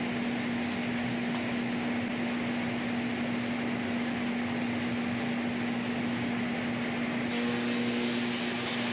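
LogRipper-300 scragg mill and its log infeed running: a steady machine hum with one strong constant tone under an even hiss. About seven seconds in, a couple of higher tones join and the hiss turns brighter.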